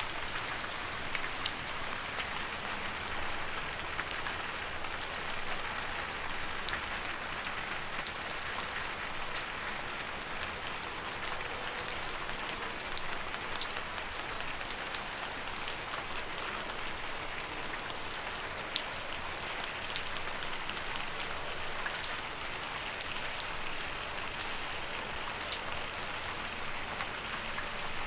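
Steady rain falling, a constant hiss with many distinct drops ticking sharply on a surface.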